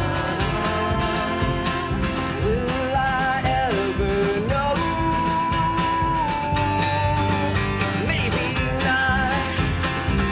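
Americana indie rock band playing live in a stretch without lyrics: acoustic-style guitars over a steady beat, with a lead melody line that slides up and holds one long high note through the middle.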